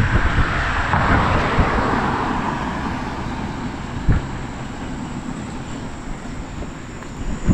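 A car passing by, loudest about a second in and then fading away, over low wind rumble on the microphone, with a single knock about four seconds in.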